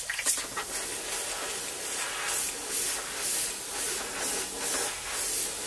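Iwata airbrush spraying solvent-based silver base-coat paint onto a soft-plastic swimbait: a high hiss in short repeated puffs a little under a second apart as the trigger is worked.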